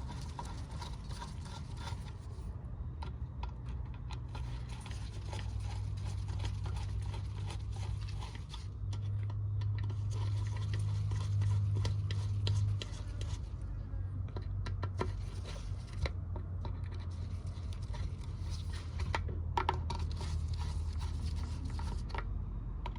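Scraping, scratching and small clicks of a hand tool and metal carburettor parts being handled while screws on a Briggs & Stratton mower carburettor are tightened, over a low steady hum.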